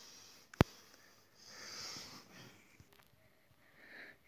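A sharp click about half a second in, then soft breathy sniffs or breaths close to the microphone, one longer and one short near the end.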